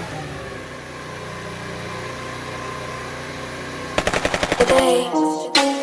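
50cc Chinese GY6-type scooter engine idling steadily. About four seconds in, a rapid burst of sharp clicks is followed by electronic music.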